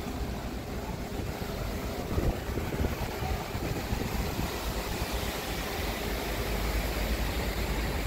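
Wind blowing across the microphone on an open ship deck, a steady low rumble with a hiss over it.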